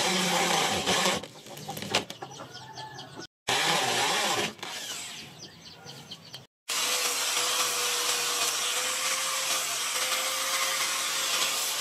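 Electric drill driving wood screws through wooden knife-handle scales in short runs, with chickens clucking in the background between them. From about seven seconds in, an angle grinder runs steadily, sanding the wooden handle.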